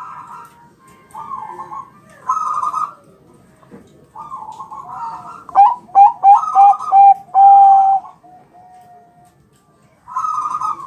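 Zebra dove (perkutut, Bangkok strain) cooing: several short rolling phrases, then a louder run of quick sharp-starting coos about halfway through that ends on a longer held note.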